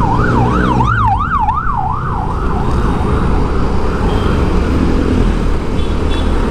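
A siren sounding a fast up-and-down yelp, about two to three swings a second, loudest about a second in and fading away by about three seconds. Steady road and vehicle noise runs underneath.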